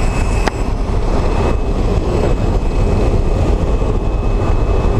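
Steady, loud drone of a small propeller plane's engine and rushing air heard inside the cabin, with a faint steady whine and one sharp click about half a second in.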